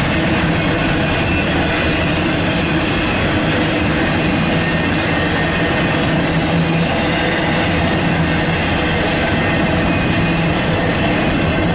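Double-stack intermodal well cars rolling past, steel wheels running on the rail with a steady, loud rumble and clatter.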